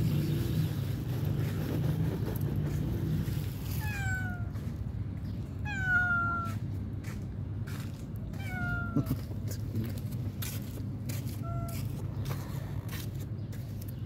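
Tabby cat meowing four times, each meow short and falling in pitch, the last one shorter and fainter. A steady low rumble runs underneath.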